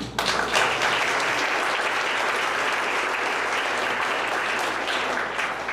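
Audience applauding, starting suddenly and holding steady, then dying away near the end.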